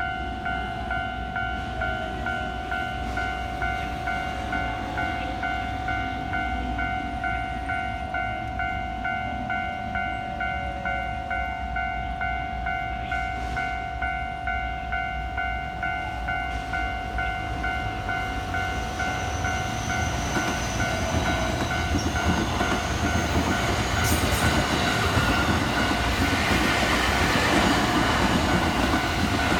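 Japanese railway level-crossing alarm ringing its electronic warning bell in a fast, regular ding-ding. From about twenty seconds in, a passing train's rumble and wheel clatter rise and largely cover the bell.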